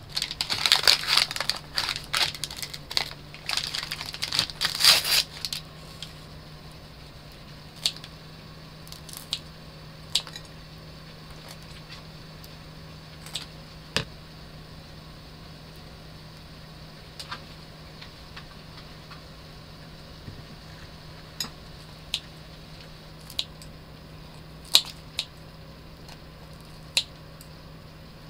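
Paper towel crinkling and rustling for about five seconds, then sparse sharp clicks and snips a few seconds apart as rice cake skewers are trimmed with kitchen scissors and set down on a dish. A low steady hum runs underneath.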